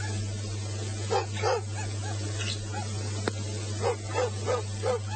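A dog barking in short barks, two about a second in and a quick run of four near the end, over a steady low hum.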